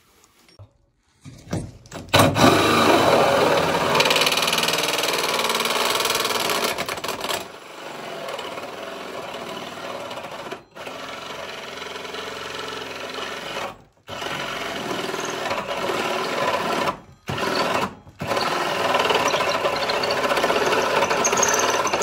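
Cordless drill spinning a hole saw through a wooden wall stud, starting about two seconds in and cutting in long runs. It stops briefly three or four times partway through.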